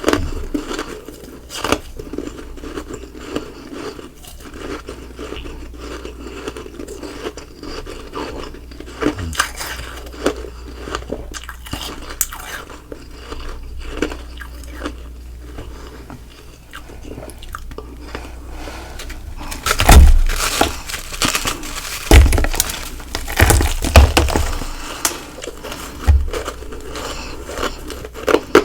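Ice being chewed close to the microphone: a steady run of small, crisp crunches, then about five much louder bites and crunches in the last third.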